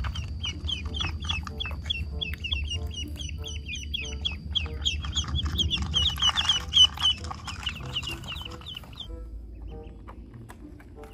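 Ducklings peeping continuously, a rapid run of short, high, downward-sliding peeps at about three or four a second, stopping about nine seconds in. A brief rustle comes midway, over a low rumble.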